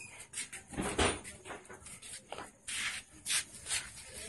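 Scuffling and rustling handling noise, with a dull thump about a second in and short hissing strokes after it.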